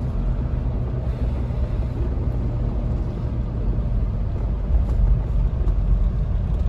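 Diesel automatic Mahindra Thar driving along a road, heard from inside the cabin: a steady low rumble of engine and road noise.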